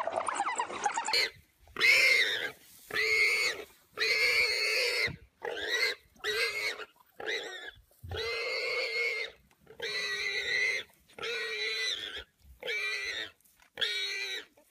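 An animal crying out in repeated squeals: about a dozen drawn-out cries, each under a second long with short gaps between, beginning about a second in.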